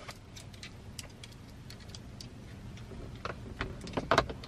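Light clicks and taps of a car-seat bag hook being fitted onto a headrest post by hand, scattered, with a few louder clicks near the end.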